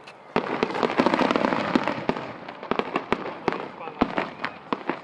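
A rapid barrage of aerial firework shells bursting: many sharp bangs in quick succession over continuous crackling. It sets in suddenly about half a second in, after a brief lull.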